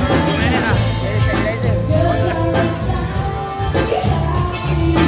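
Live pop-rock band playing a cover song, with singing over electric guitar, bass, keyboard and drums.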